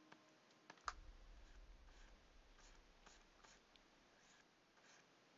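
Near silence with a sharp click about a second in, then faint scratchy strokes of a stylus on a graphics tablet as the beard is drawn stroke by stroke.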